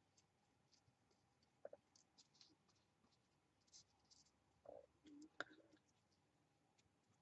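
Faint scratchy strokes of a flat brush spreading glue on the back of a paper butterfly cutout, with a few light clicks and taps as the piece is handled.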